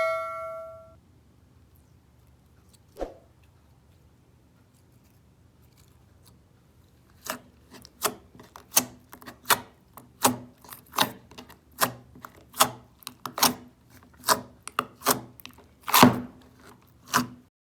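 A ringing, bell-like tone fades out at the start. After a lone knock, a run of short, crisp crunching or cutting strokes follows, roughly one to two a second, as a firm material is cut or crushed.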